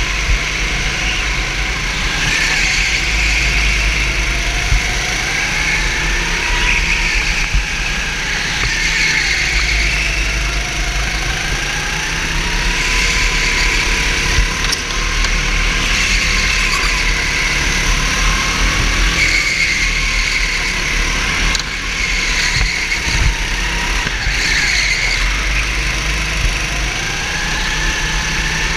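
Racing kart engine heard from on board, its pitch rising and falling over and over as the throttle is opened on the straights and lifted into the corners, with a low rumble beneath and a few short knocks.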